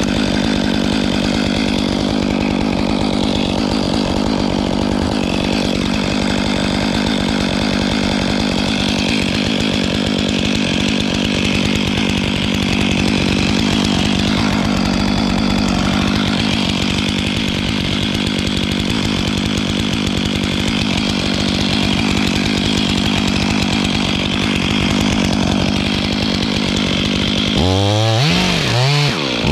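Stihl 500i two-stroke chainsaw held at full throttle, cutting steadily through the cedar spar trunk. Near the end the throttle is let off and blipped, the pitch swinging down and up.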